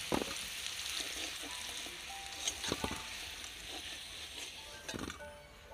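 Hot mustard oil sizzling in a karahi as fried potato wedges are lifted out with a metal spatula, with a few clinks of the spatula against the pan and the steel plate. The sizzle fades near the end.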